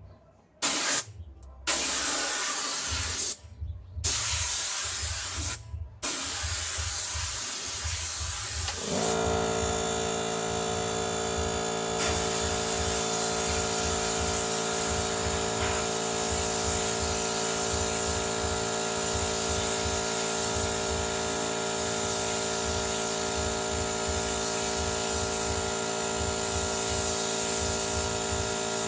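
Motomil 24-litre air compressor: compressed air hisses out in several short bursts. About nine seconds in its motor starts and runs steadily with a humming drone, the air hiss carrying on.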